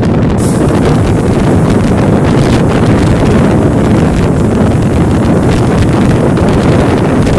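Loud, steady wind noise on a phone's microphone, filmed from a moving Mumbai suburban local train, with the train's low running rumble beneath it.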